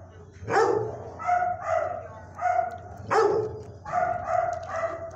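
Dogs in shelter kennels barking over and over, about ten short barks. Two sharper, louder barks come about half a second in and again about three seconds in.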